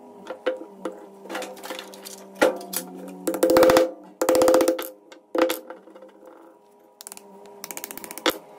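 Steel laminations of a power-supply transformer core being pried apart with a screwdriver: sharp metallic clicks, two loud rapid rattling scrapes a little past the middle, and a quick run of ticks near the end. Steady background music plays underneath.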